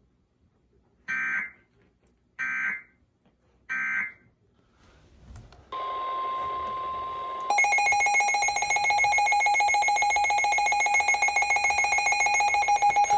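Emergency Alert System signalling: three short, equal bursts of screeching SAME header data tones, then a steady tone over hiss, and about 7.5 s in a much louder, steady multi-pitch alert tone takes over, marking the start of a new warning.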